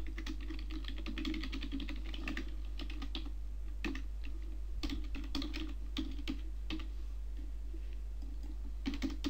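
Typing on a computer keyboard: irregular runs of quick keystrokes with short pauses, over a steady low hum.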